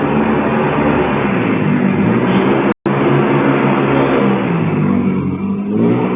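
A motor vehicle's engine running close by, loud and steady, heard through a CCTV camera's microphone, with a brief dropout in the audio a little under three seconds in.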